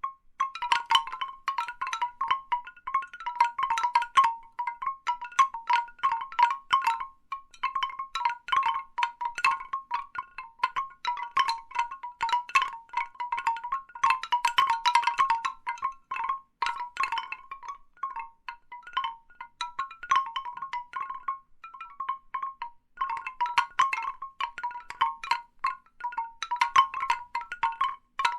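Large bamboo wind chimes knocking together in irregular clusters of short, hollow, pitched clacks, with brief lulls now and then.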